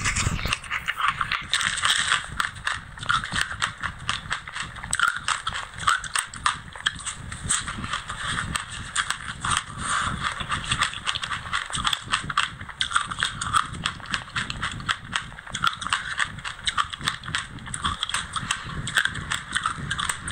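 Chewing a mouthful of food thickly coated in white sesame seeds: a steady stream of many small, dense crunchy clicks without a pause.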